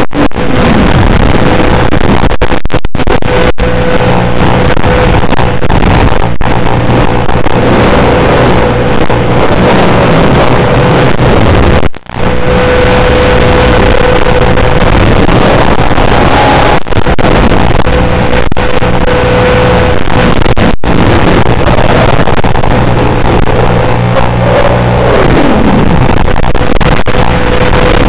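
FPV quadcopter's motors buzzing through the analog video link's audio, loud and distorted, with pitch glides as the throttle changes. A few brief dropouts cut the sound where the radio signal breaks up.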